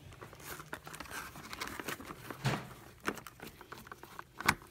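Irregular small clicks, knocks and light rustling as the parts of a new door lock set are handled and taken out of their packaging, with one sharp click about four and a half seconds in.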